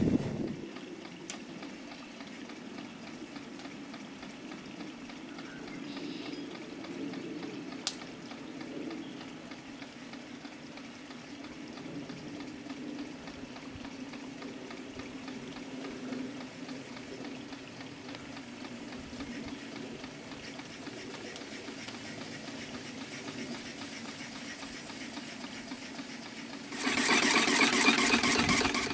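Small steam engine driving a home-built alternator, running steadily. It gets much louder for the last two seconds or so, heard close up.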